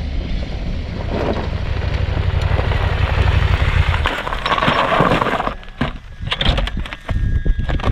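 KTM adventure motorcycle riding up a gravel track with a deep rumble and tyre crunch, the sound dropping away about five and a half seconds in as it comes to a stop. Scattered small clicks and knocks follow.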